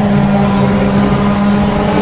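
Off-road speedway race car engines running hard with a steady, held note during a heat race.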